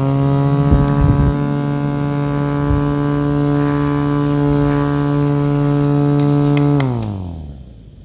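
Small electric motor of a handheld mini fan, blades removed, running steadily with a hum. About seven seconds in it winds down, falling in pitch as it stops.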